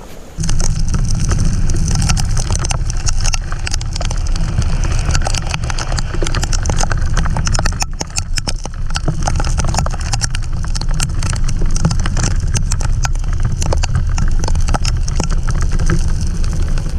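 Motorcycle on the move: heavy wind rushing over the camera microphone, with the engine running underneath and a dense patter of small clicks. It cuts in suddenly about half a second in and runs on steadily.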